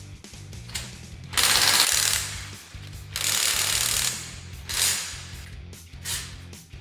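Einhell IMPAXXO 18/400 cordless impact driver hammering in bursts: two of about a second each, then two short ones, over background music.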